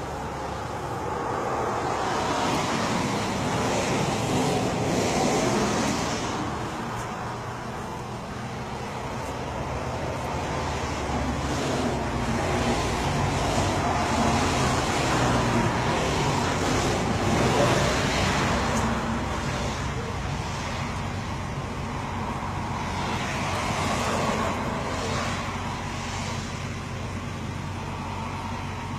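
Road traffic: vehicles passing on a highway, the noise swelling and fading as each goes by, loudest about a third of the way in and again past the middle.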